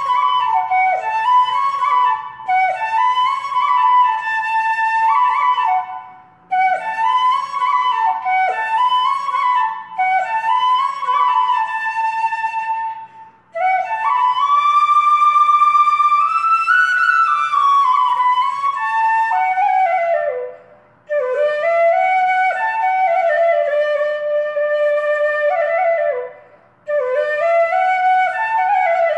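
Background music: a solo flute playing a melody in phrases a few seconds long, with short pauses between them.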